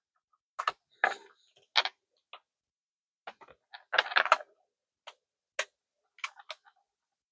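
Irregular clicks and taps of small hard objects being handled on a bench, a phone being set down on a wireless charger, with a quick cluster of clatter about four seconds in.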